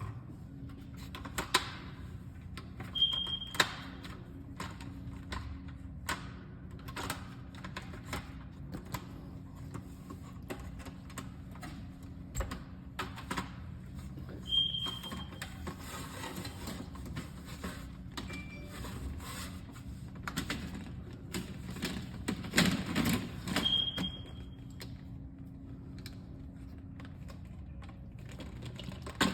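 Irregular clicks, taps and knocks of hard plastic parts being handled on a Fisher & Paykel integrated refrigerator, over a faint steady hum. There are three short, high electronic beeps: a few seconds in, about midway and near the end.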